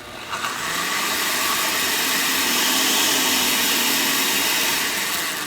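Countertop blender on its low shred setting, chopping a thick, chunky mix of vegetables, shrimp and gochujang sauce with almost no liquid. The motor starts suddenly, runs steadily, and begins to die away near the end.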